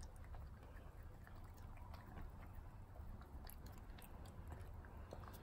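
A cat licking and lapping a creamy lickable snack: a run of quick, faint, irregular wet clicks.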